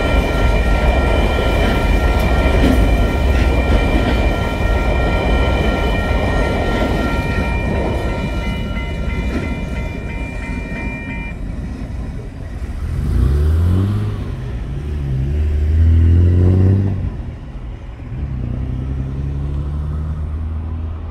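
Freight train container wagons rumbling past a level crossing while the crossing's warning bell rings steadily. The bell cuts off suddenly about eleven seconds in, once the train has cleared. A car then pulls away over the crossing, its engine rising in pitch twice as it accelerates before settling to a steady drone.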